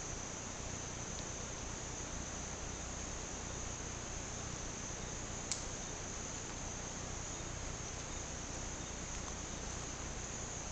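Steady chorus of Amazon rainforest insects at dusk: a continuous high-pitched trill with no break. A single sharp click sounds about five and a half seconds in.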